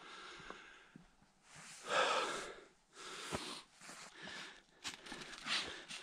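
A run of short, breathy snorts and puffs, the loudest about two seconds in, with small clicks between them.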